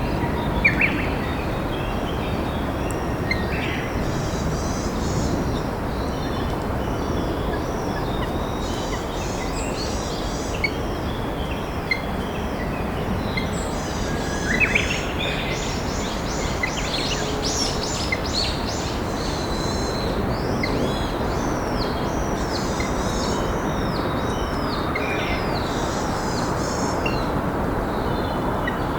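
Steady rush of a flowing river, with wild songbirds chirping and singing over it in many short calls and trills, busiest through the middle stretch.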